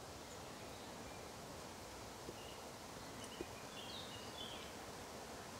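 Faint, steady outdoor forest ambience, with a few soft bird chirps about halfway through and a couple of tiny clicks.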